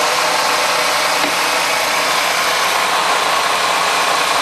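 Atlas 618 metal lathe running steadily: spindle headstock, gears and link belt driven by a small motor, giving a continuous mechanical whir. The lathe is being run in to settle the spindle bearing preload.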